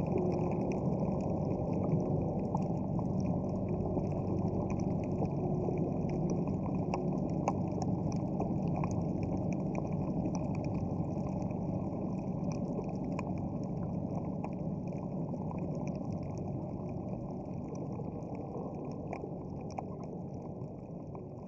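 Heard underwater: the steady low drone of a boat engine under a dense crackle of small clicks, slowly fading toward the end.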